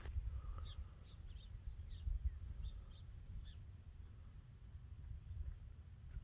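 Faint summer field ambience: a cricket chirping evenly at about two chirps a second, with small scattered bird chirps, over a low steady rumble.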